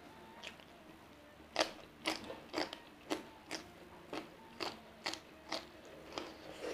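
Crunchy chewing of raw vegetable with sambal, picked up close to the microphone: a run of sharp crunches about two a second, starting about a second and a half in, the first one the loudest.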